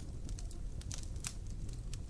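Wood fire crackling in a fireplace: irregular small pops and snaps over a low steady rumble of the flames.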